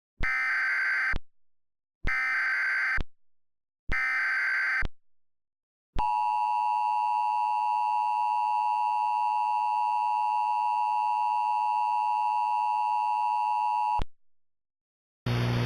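Emergency Alert System alert tones, generated with an EAS encoder: three one-second bursts of SAME header data tones about a second apart, then the steady two-tone attention signal held for about eight seconds and cut off abruptly. A low electrical hum starts just before the end.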